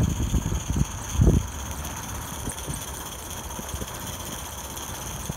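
Accucraft Dolgoch 16 mm scale live-steam locomotive running slowly along 32 mm gauge garden track, with a steady hiss. A few low bumps come in the first second and a half, the loudest about a second in.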